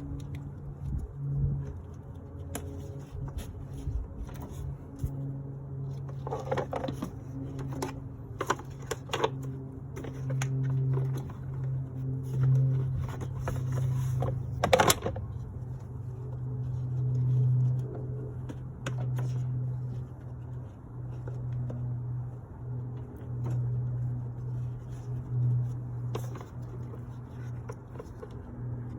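A steady low machine hum that swells and fades in level, with scattered clicks and knocks and one sharp knock about fifteen seconds in.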